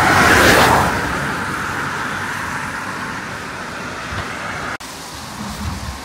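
A road vehicle passing close by on a highway. Its noise is loudest in the first second and fades steadily as it moves away.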